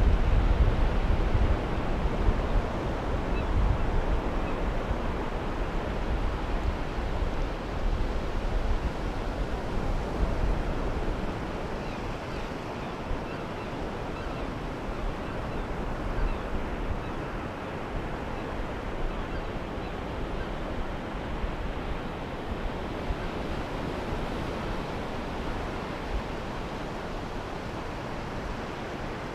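Sea surf washing onto a pebble beach, a steady rush of waves, with wind buffeting the microphone, heaviest in the first few seconds.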